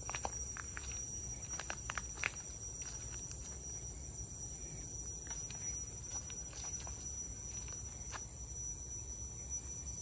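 Steady, high-pitched drone of forest insects, with irregular footsteps on the trail, most of them in the first couple of seconds.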